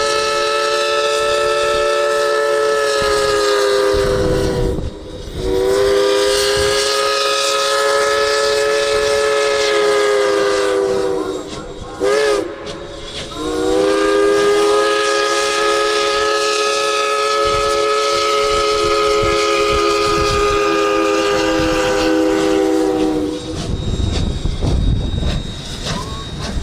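Steam locomotive's chime whistle blowing a chord of several tones in long blasts: two long, a short toot, then one long blast of about ten seconds, each sagging slightly in pitch as it ends. This long-long-short-long pattern is the signal for a grade crossing. Afterwards the train's rumble and clatter on the rails.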